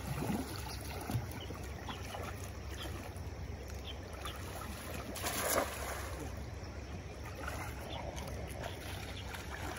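Steady wash of a shallow river with wind on the microphone, and a cast net splashing down into the water about five and a half seconds in.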